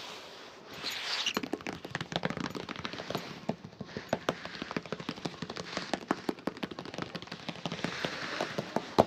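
Rapid, irregular clicking and scratching from hands-on shoe-shining work on a shoe, several clicks a second, with one sharper click near the end.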